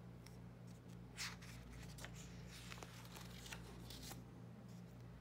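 Pages of a picture book being turned by hand: a few faint paper rustles and swishes, the clearest about a second in, over a steady low hum.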